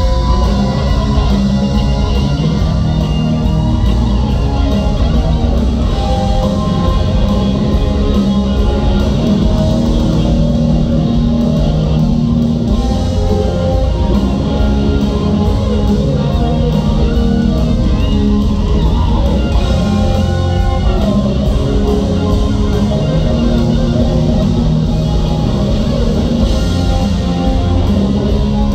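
Live hard rock band playing loud through a concert PA, electric guitar out front over bass and drums, as heard from the crowd.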